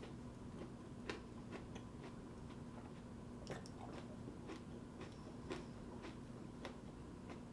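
A person chewing a mouthful of raw tomatillo with the mouth closed: soft, irregular crunches and wet clicks, over a faint steady hum.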